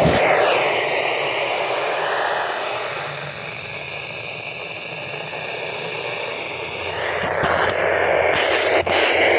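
Radio static: a steady hiss from a radio receiver carrying no programme, with a few sharp crackles near the end.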